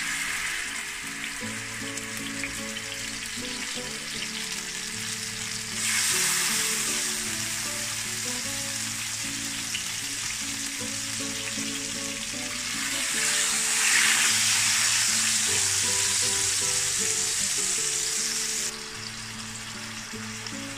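Marinated boneless chicken pieces sizzling in hot oil in an electric frying pan; the sizzle swells louder about six seconds in and again around thirteen seconds as more pieces go in, then drops back near the end. Background music plays softly underneath.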